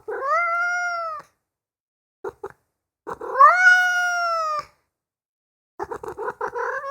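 Domestic cat meowing. It gives a meow of about a second, two short chirps, then a longer, louder meow that rises in pitch and holds. Near the end comes a run of short, broken calls running into another meow.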